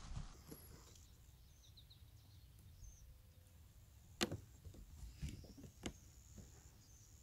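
Faint outdoor background noise on a boat, with two sharp knocks about four seconds in and again near six seconds.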